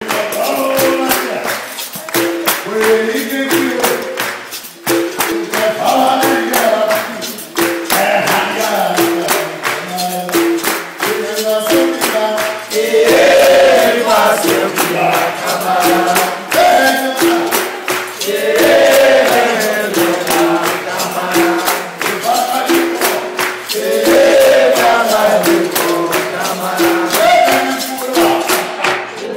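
Capoeira music: berimbaus struck in a steady repeating rhythm, with a man's lead singing and a group answering in chorus.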